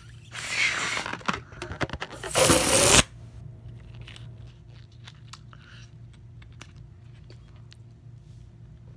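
Forceful breaths blown into a small rubber water balloon: one long puff, a few short broken ones, then the loudest blow, which cuts off sharply about three seconds in. Faint rustles and small clicks of the balloon being handled follow.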